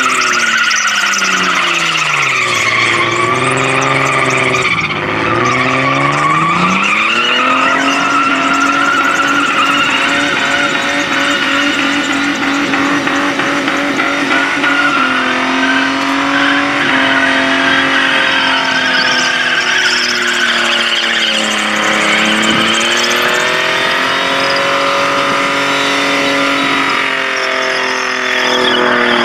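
Ford AU Falcon sedan doing a burnout: the engine runs at high revs while the rear tyres spin and screech against the bitumen. The revs sag and climb back twice, a couple of seconds in and again around twenty seconds in.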